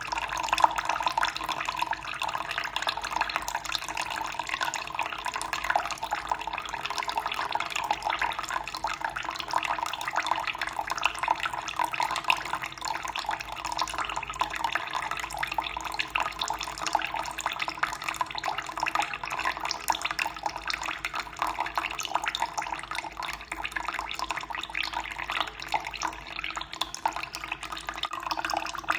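Running water splashing and trickling without a break, a steady even flow.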